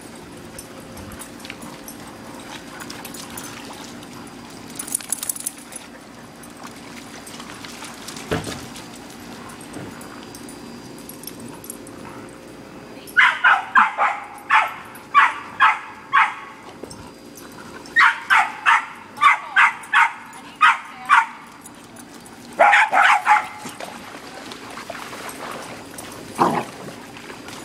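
A dog barking in quick runs of sharp, high barks, two or three a second, in three bouts after a quieter first half, the last bout short.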